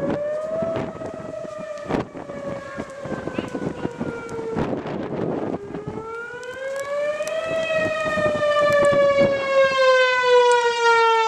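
Outdoor tornado warning siren wailing, its pitch slowly rising and falling twice as it sweeps and growing louder in the second half. Wind buffets the microphone.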